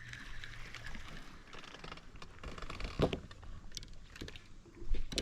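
Scattered light clicks and taps of small things being handled, with a louder knock about three seconds in and another near the end.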